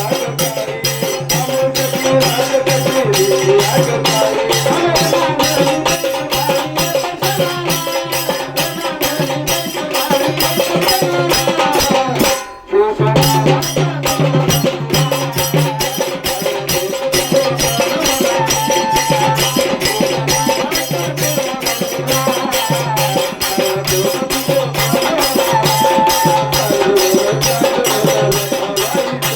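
Marathi devotional folk song with a fast, even shaker-like beat, a steady drone and a wavering melody line. The music drops out for a moment about twelve seconds in.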